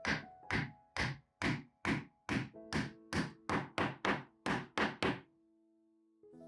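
A mallet knocking on wood in a quick run of about sixteen sharp strikes that speed up steadily, then stop about five seconds in.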